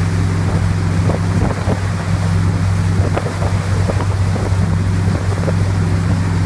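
Motorboat engine running at a steady speed, a constant low hum, over the noise of the foaming wake and wind buffeting the microphone.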